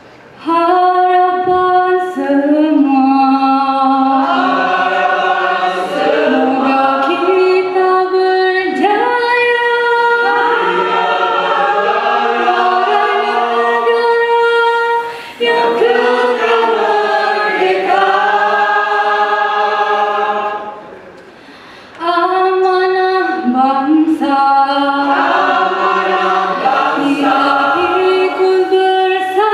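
Mixed choir of women's and men's voices singing unaccompanied in harmony, with held chords. The singing breaks off briefly about halfway through and pauses for about a second and a half before picking up again.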